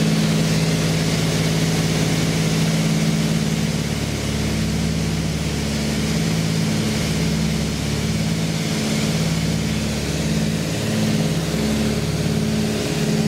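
Cessna 310's twin piston engines and propellers droning steadily, heard from inside the cockpit. In the last few seconds the drone starts to pulse in a slow, even beat.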